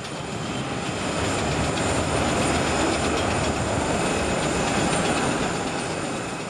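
Jet airliner's engines at takeoff power as it lifts off and climbs out: a loud, even jet noise that swells over the first couple of seconds, holds, then fades toward the end.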